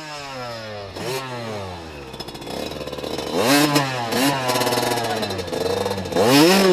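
Enduro dirt bike engine revved in a series of blips, its pitch repeatedly rising and falling, with the biggest rev near the end.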